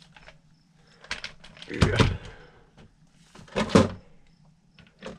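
Handling noises: knocks and clatter of hard objects being picked up and set down, with two louder thumps about two and three and a half seconds in.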